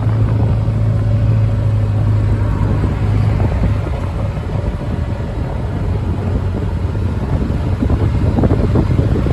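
Vehicle engine running steadily with a low drone, heard from aboard a moving open farm vehicle, with road and rattle noise.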